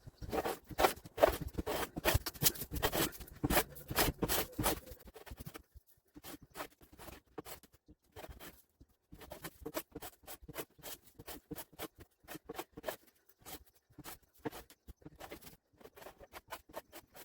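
Hand plane cutting wood in quick repeated strokes, scraping and crackling as it takes shavings off a high spot in the middle of the board. The strokes are dense and loudest for about the first five seconds, then lighter and sparser.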